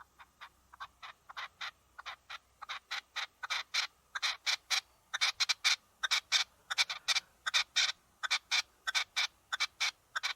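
A bird calling in a long series of short, evenly repeated calls, about three a second, growing louder over the first few seconds and then holding steady.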